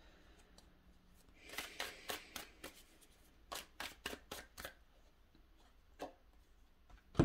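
Tarot cards being shuffled and handled: a run of soft, quick snaps and slaps for about three seconds, then two single taps, the last one the loudest, near the end.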